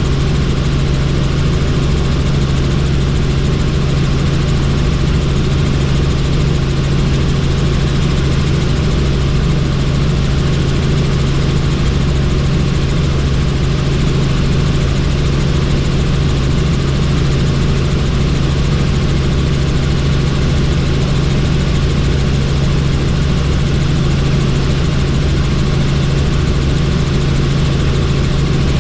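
Helicopter in flight heard from inside the cabin: a loud, steady drone with a strong low hum and an even rushing of air, unchanging throughout.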